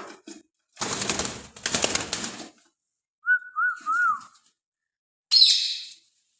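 A pet parrot at close range: a burst of rustling, then a short wavering whistle of three rises and falls about halfway through, and a harsh squawk near the end.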